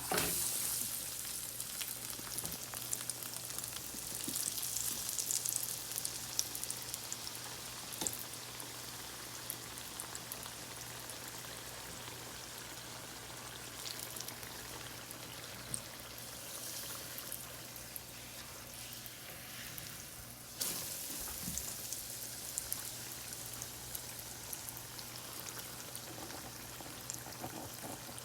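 Hot oil in a deep fryer sizzling and crackling around a phone being deep-fried. It starts suddenly loud and flares up again about three-quarters of the way through.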